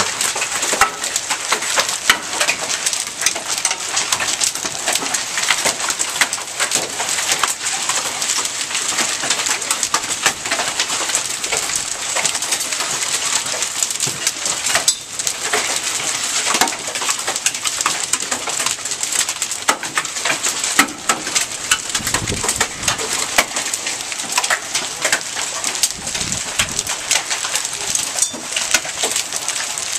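Rain and small hail pelting the ground, lawn and roofs: a steady hiss with a dense patter of sharp ticks from stones striking, and a few low rumbles near the end.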